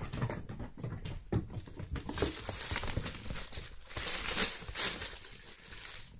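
Kittens playing: irregular scuffling, pattering and rustling from paws on tatami mats, louder bursts about two seconds in and again around four to five seconds.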